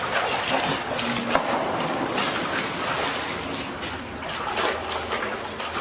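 Water splashing and sloshing unevenly, with a sharp knock about a second and a half in.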